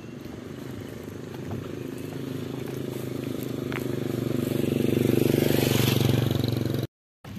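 A motor vehicle's engine running with a steady, fast pulsing note, growing louder over several seconds, then cutting off suddenly near the end.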